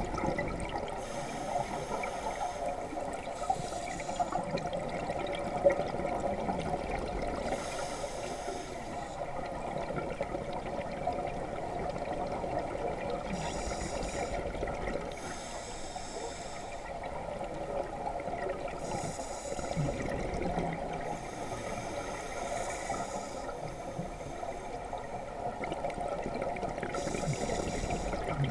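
Scuba diver breathing through a regulator underwater: a rush of air and bubbles about every three to five seconds, over a steady hum.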